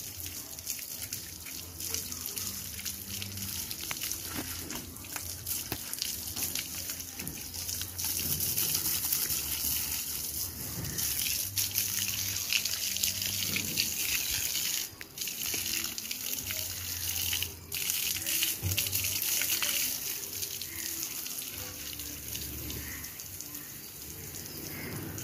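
Water spraying from a garden hose onto a wet dog and splashing on concrete, a steady hiss that grows louder about a third of the way in and breaks off briefly twice in the middle.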